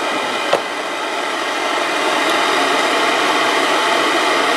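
Steady hiss of a gas hand torch's blue flame burning, a little louder after about two seconds, with a small click about half a second in.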